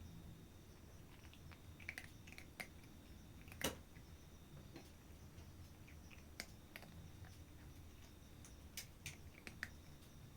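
A cat chewing its food: faint, irregular crunching clicks, a dozen or so, with one louder click a few seconds in.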